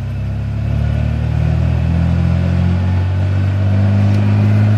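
A 1991 Ford F-150's 4.9-litre straight-six engine running, slowly getting a little louder.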